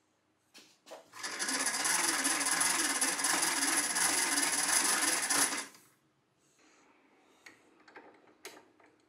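Hand crank of a 1920s Stewart Handy Worker vise-drill-grinder being turned, spinning its cast-iron gear train with a rhythmic metallic whirr that wavers with each turn of the handle, for about four and a half seconds. Near the end come a few light metal clicks as the vise parts are handled.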